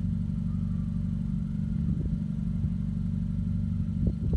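Car engine idling steadily with a low hum, with a few light knocks near the end. It is the 2018 Honda Civic Hatchback Sport's 1.5-litre turbocharged four-cylinder.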